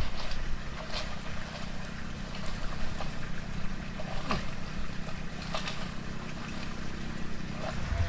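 Steady low rumble of wind on the microphone, with about five short rustles and snaps scattered through it as a long bamboo pole moves among the tree's branches and leaves.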